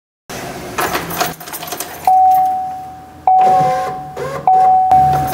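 2008 Chevy Equinox's in-car warning chime dinging, about four dings roughly a second apart, each a single clear tone that fades away. Rustling and clicks come first.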